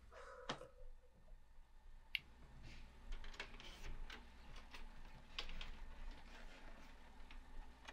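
Quiet room tone with a steady low hum, broken by scattered faint clicks and light knocks at irregular spacing.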